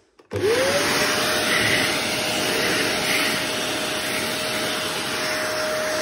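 Black Goblin ECV002B-19 cylinder vacuum cleaner switched on about a third of a second in: the motor whine rises quickly to pitch, then runs steadily under a rush of suction air.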